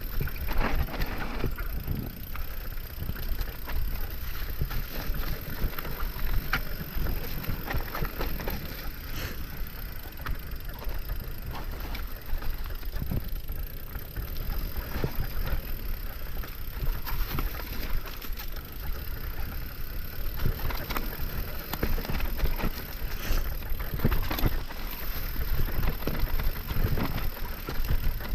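Mountain bike riding fast down a dirt trail: knobby tires rumbling over the ground, with frequent rattles and knocks from the bike and steady wind noise on the mic.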